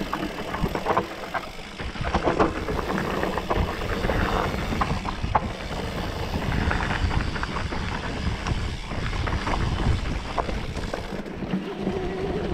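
Mountain bike riding fast down a dirt singletrack: tyres rumbling over the ground, with frequent short knocks and rattles from the bike over bumps and roots.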